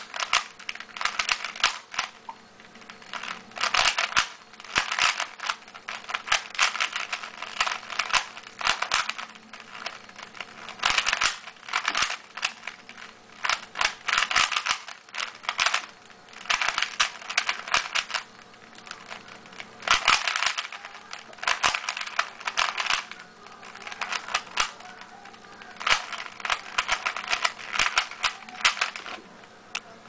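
A 3x3 Rubik's cube being turned fast by hand: the plastic layers click and clatter in quick runs of turns about a second long, with short pauses between them.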